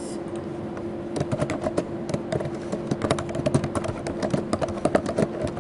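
Typing on a computer keyboard: a fast, irregular string of key clicks, thickest after about a second in, over a steady low hum.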